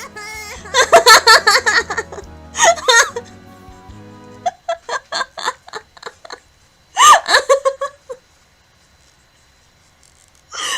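A woman laughing hard in loud bursts over a song's instrumental backing track. The backing track stops about four and a half seconds in, and she keeps laughing in short, quick bursts, then once more loudly before falling quiet near the end.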